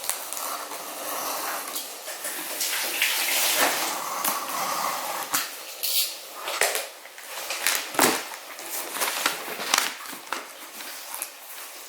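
Packaging being handled: paper and plastic rustling and crinkling, with frequent small clicks and knocks as items are taken out of a box.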